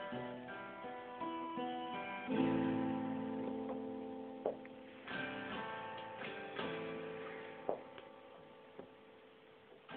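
Solo acoustic guitar with no singing: chords plucked and left to ring, growing sparser and quieter toward the end, with a few sharp percussive clicks in between.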